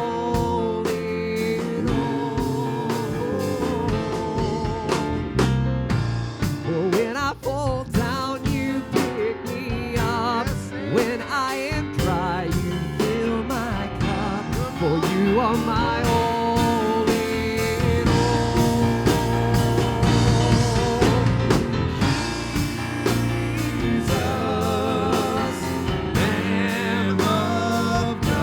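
Live church praise band playing a worship song: a wavering lead melody over sustained chords and a steady beat.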